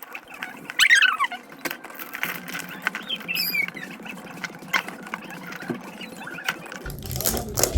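Plastic egg-carton packaging of a toy being picked at and pried open by hand: irregular clicks, scratches and crackles of the plastic. A few short high chirps come about a second in and again midway.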